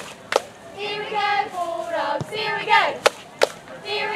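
Cheerleaders chanting a cheer in unison, sing-song, with a few sharp claps between the lines.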